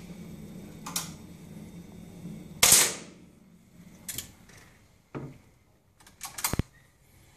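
Air rifle shots in running-target shooting: one sharp, loud crack about two and a half seconds in, with lighter mechanical clicks around it and a second sharp report near the end.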